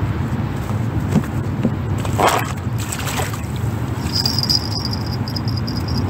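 Steady low outdoor rumble at the water's edge with faint water sloshing. A short burst of sound comes about two seconds in, and a high, rapidly pulsing chirp begins about four seconds in.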